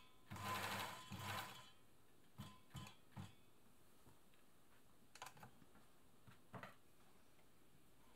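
Elna Air Electronic sewing machine stitching in two short runs about a second apart, near the start, with its tension freshly cleaned and sewing correctly. A few soft clicks and rustles follow as the test fabric is drawn out from under the presser foot.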